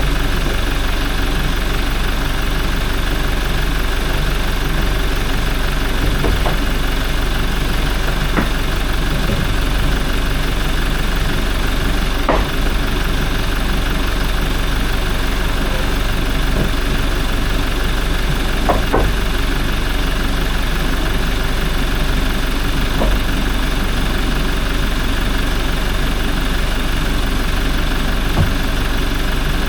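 Toyota 1GD-FTV 2.8-litre four-cylinder turbodiesel idling steadily, with a few scattered sharp clicks. This is the idle sound checked for timing-chain rattle.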